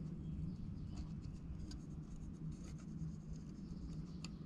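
Faint scratching of a soldering iron tip and solder wire working a joint on a thin brass sheet box, with a few light ticks, over a low steady hum.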